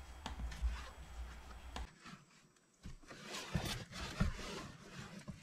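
Rustling and flapping of heavy canvas boat sunscreens being gathered up and folded by hand, with a few soft knocks, busier in the second half.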